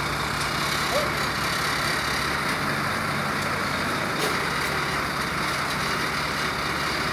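Heavy vehicle engine running steadily at a low, even speed, with a few faint clicks over it.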